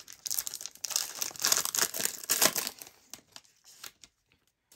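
Plastic-foil trading-card hanger pack wrapper being crinkled and torn open: a couple of seconds of dense crackling that tails off into a few light rustles and clicks.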